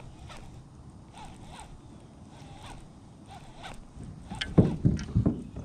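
Fishing reel being cranked in a steady retrieve, a rhythmic scratchy whir of about two to three handle turns a second. Near the end come several loud low knocks.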